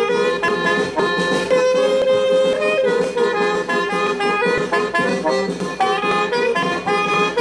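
Accordion playing a fast dance tune, its notes changing several times a second over a sustained lower note.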